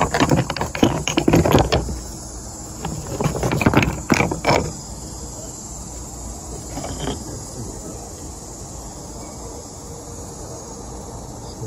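Handling noise from fingers rubbing and bumping a phone held close to a rock slab: dense crackly rustling for the first two seconds and again from about three to four and a half seconds, then it settles. A faint steady trill of insects runs behind it.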